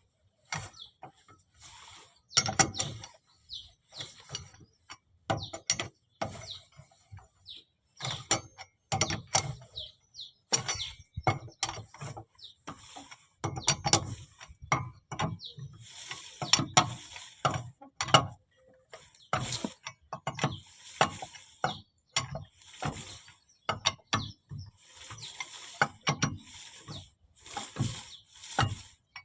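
Ratchet wrench clicking in short repeated strokes, with knocks and clinks of metal tools and parts, during work on a van's front wheel hub.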